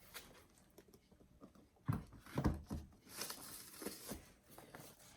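Books being handled: two soft thumps about two seconds in, then a light rustling.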